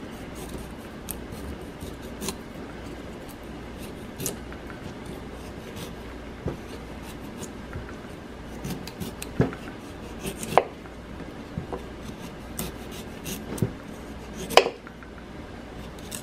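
Kitchen knife paring the tough skin off a kohlrabi slice on a cutting board: scattered crisp slicing and scraping clicks, with a few louder clicks around the middle and near the end, over a faint low hum.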